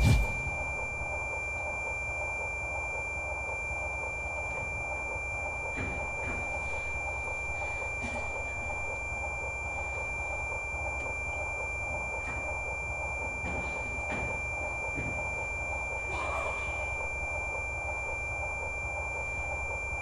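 Faint, scattered thuds of a dancer's feet landing and running on the stage floor, over steady hiss and a constant high-pitched whine, with a sharp knock right at the start.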